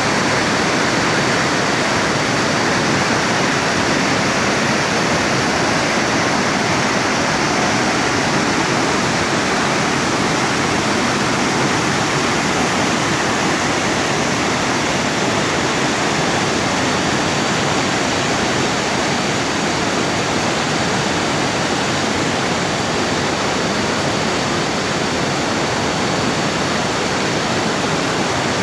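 Fast-flowing river water rushing loudly and steadily.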